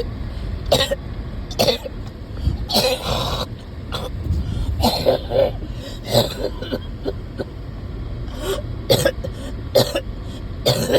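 A person coughing and clearing their throat again and again in short, irregular bursts, with a longer harsh cough about three seconds in.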